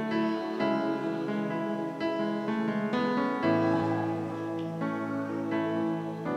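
Electric keyboard playing slow, held chords that change every second or so: an instrumental passage between sung lines of a live worship song.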